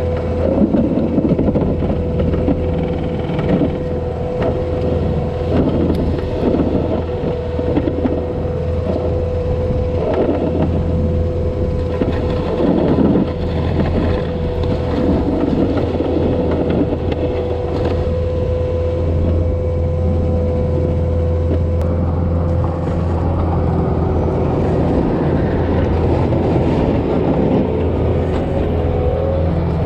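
Diesel engine of a snow-clearing machine running steadily, with a constant low hum and a steady whine over it, and rougher irregular noise through the first half.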